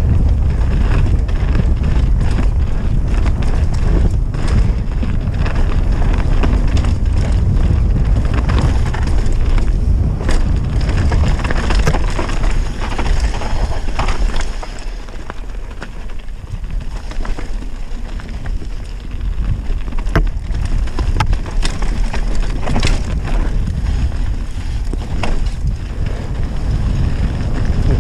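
Wind buffeting the on-bike microphone with a steady rumble of tyres on a dirt and leaf trail, and sharp knocks and rattles of a Scott Gambler downhill mountain bike over bumps. It goes quieter for a few seconds a little past halfway.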